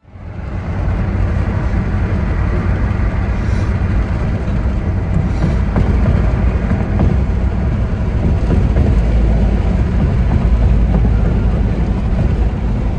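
Loud, steady low rumbling noise that starts abruptly and runs without a break.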